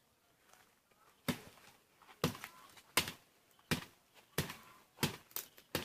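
Repeated chopping blows on wood: about eight sharp strikes in a steady rhythm, roughly one every two-thirds of a second, starting about a second in.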